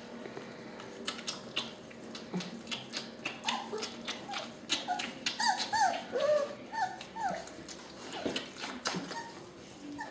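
Puppies nursing from their standing mother: a run of about a dozen short, high whimpers and squeals from about three and a half to seven and a half seconds in, over steady clicking and smacking from the suckling.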